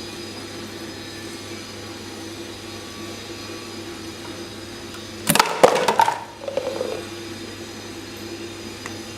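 A steady mechanical hum with a few fixed tones, broken about five seconds in by a second and a half of clattering knocks and clicks.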